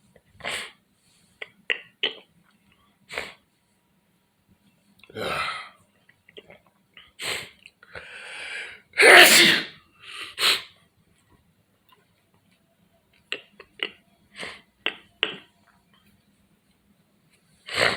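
A person sneezing: one loud sneeze about halfway through, among several shorter, sharp breathy bursts.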